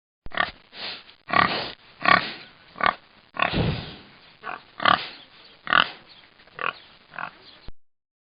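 A domestic pig grunting: about a dozen short calls in an uneven series, stopping shortly before the end.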